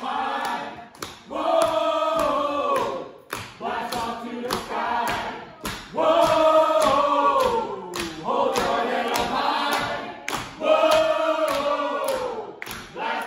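Live brass band with drums: the horns swell into a loud phrase about every four to five seconds, each one ending in a falling slide, over a steady drum beat.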